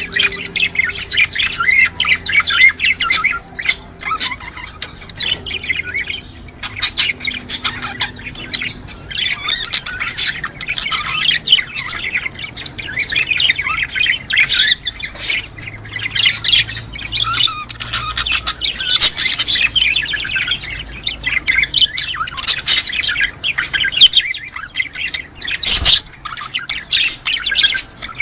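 Small cage birds chirping and squawking in dense, unbroken flock chatter, with a sharp click near the end.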